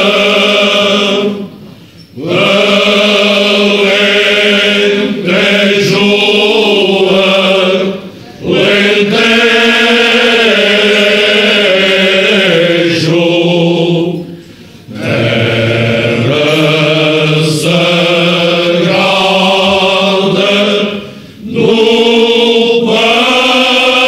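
Male choir singing cante alentejano, unaccompanied Portuguese polyphonic folk song, in slow, long held phrases, with four short pauses between phrases.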